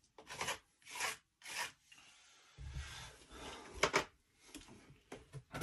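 Putty knife scraping and smearing clay over a stove's surface: three quick scraping strokes near the start, then low handling rumble with a sharp tap about four seconds in.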